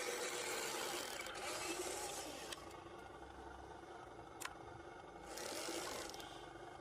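Small electric motor and gears of a radio-controlled scale truck whirring in spurts, with two sharp clicks between them.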